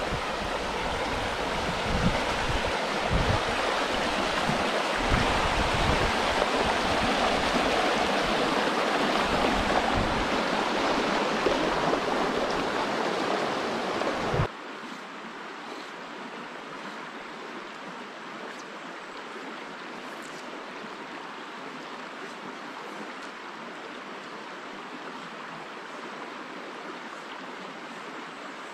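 Brook water rushing over rocks, a steady rush with scattered low thumps. About halfway through it cuts abruptly to a quieter, even flow.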